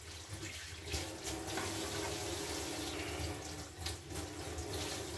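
Water running steadily from a kitchen tap into a sink.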